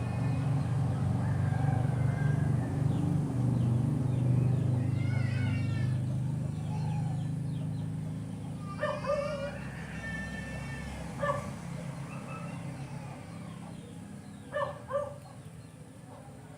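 Low rumble of a passing vehicle's engine, fading away over several seconds. Short animal calls sound over it: a few single calls, then a quick pair near the end.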